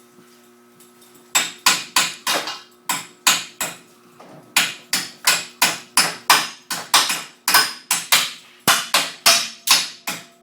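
A hammer striking steel, about three ringing blows a second, starting a second and a half in and pausing briefly near the middle.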